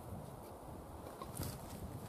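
Low wind rumble on the microphone outdoors, with a couple of faint light taps about one and a half seconds in as a big knife and wooden baton are lined up on a log before splitting it.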